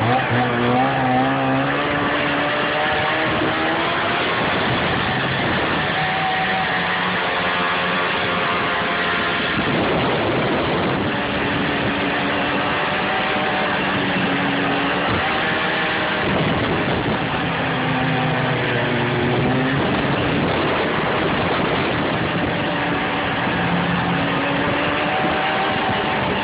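Snowmobile engine running under way, its pitch rising and falling again and again as the throttle changes, over a steady rushing noise.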